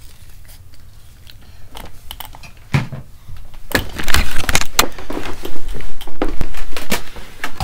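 Handling noise of a laptop being picked up and moved, its built-in microphone catching rubbing and a quick string of knocks and clicks. Faint scattered clicks at first, turning loud and dense about four seconds in.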